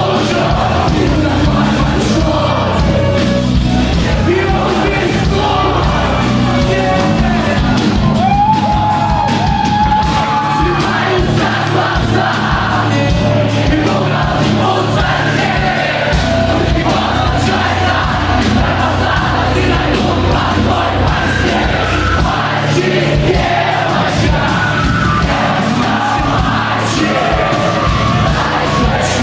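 Live rock band performing loudly, with sung vocals over drums and cymbals, and a crowd yelling along.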